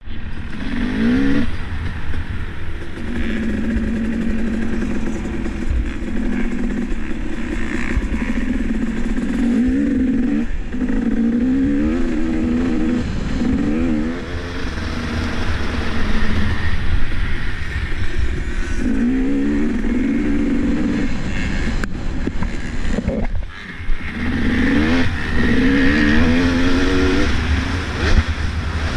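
Motocross dirt bike engine revving hard, its pitch climbing and dropping again and again as the rider twists the throttle and shifts through the gears, with wind rumbling on the helmet microphone. About three quarters of the way through the engine briefly falls off, then a sharp knock.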